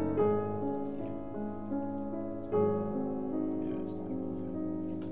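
Slow background piano music: a chord is struck just after the start and another about halfway through, each left to ring and fade.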